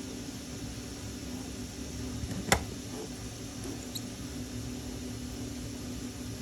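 Small 3D-printed plastic parts and an M3 screw being handled on the bench: one sharp click about two and a half seconds in, and a couple of faint ticks a second later, over a steady low hum.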